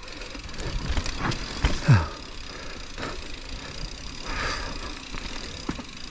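Mountain bike rolling down a dirt trail: tyre noise with scattered rattles and knocks from the bike over the ground, and a short low falling sound about two seconds in.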